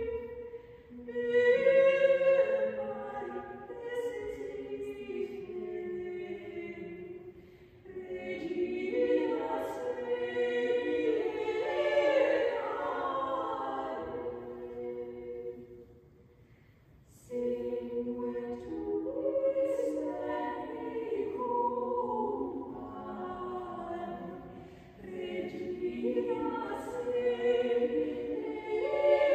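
A small ensemble of six female voices singing a fifteenth-century English carol a cappella in close harmony. The singing comes in phrases with short breaths between them, and breaks off almost to silence for about a second a little past halfway.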